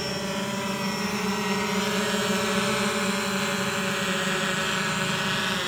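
Fimi X8 SE quadcopter's motors and propellers running with a steady, many-toned whine just after take-off, getting a little louder from about a second and a half in.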